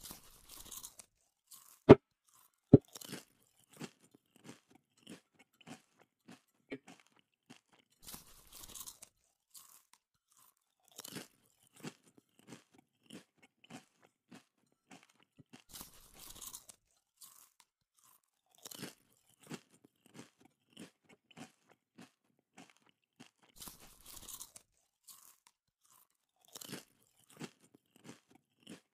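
Close-up chewing of chicken feet: small crunches about twice a second, with two sharp, loud clicks about two seconds in and a brief hiss every few seconds.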